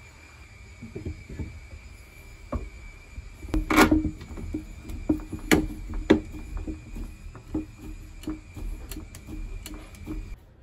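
Hardwood pieces knocked together and a red screw F-clamp slid onto a glued half-lap joint and tightened, giving clatters and knocks, the loudest about four seconds in, then a run of small clicks as the clamp handle is turned. A faint steady high whine runs underneath and stops just before the end.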